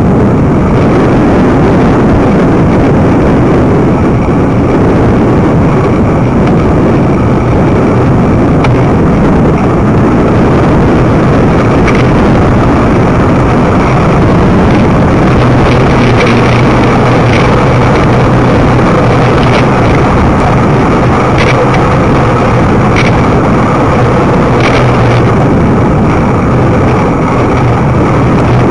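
Wind rushing over the microphone of a camera riding on a moving bicycle, a loud steady rumble mixed with tyre and road noise, with occasional faint clicks.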